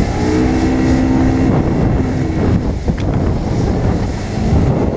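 A bass boat's outboard motor running at cruising speed, with wind buffeting the microphone and water rushing along the hull. A steady engine tone stands out most in the first second and a half, then sinks into the rush.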